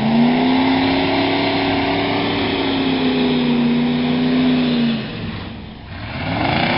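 Ford pickup truck's engine revved hard and held at high revs for about five seconds as the truck tries to drive out of deep mud, then let off and revved up again near the end.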